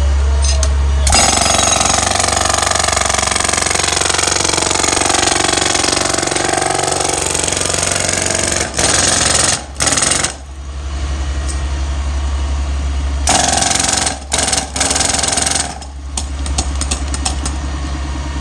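Powered percussive tool hammering rapidly and steadily on a water-line dig. It stops briefly a few times past the middle, then starts up again.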